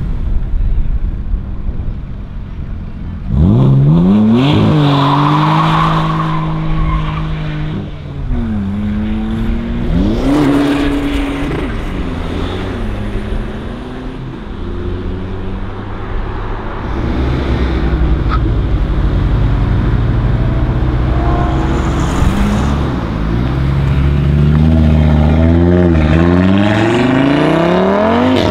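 Several cars accelerating hard away one after another, among them a BMW Z4 roadster, a BMW 3 Series Touring and an Audi TT. Their engines rev up with rising pitch, drop at each gear change and climb again. About three seconds in, a sudden hard launch comes with a brief tyre squeal.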